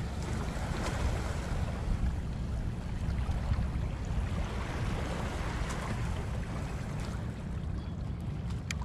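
Wind buffeting the microphone, heard as a low rumble, over a steady wash of water.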